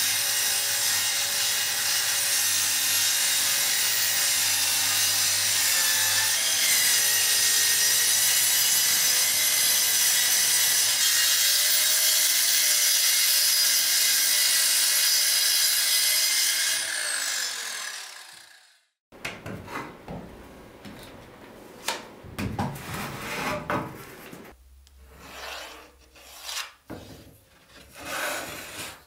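Handheld circular saw cutting 10 mm plywood along a clamped straightedge, running steadily for about 17 seconds, then its motor winding down and stopping. After that, quieter irregular scraping and knocks of plywood and a steel square being handled.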